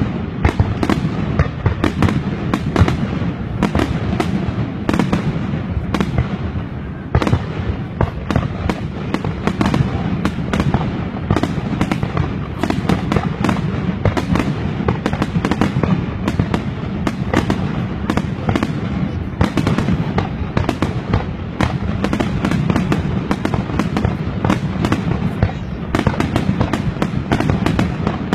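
Fireworks going off in a dense, continuous barrage of bangs and crackles, many bursts a second with no let-up.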